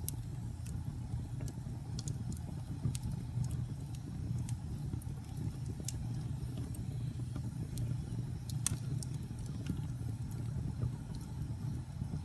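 Fire burning with a steady low rumble and scattered crackles and pops, one sharper pop about three-quarters of the way through.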